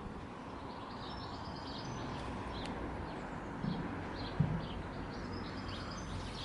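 Outdoor ambience: birds chirping in short, scattered calls over a steady low rumble.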